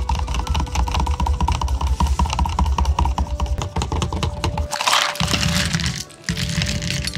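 A spoon stirring in a plastic cup, a fast run of clicks against its sides, with background music. A brief rushing noise comes about five seconds in.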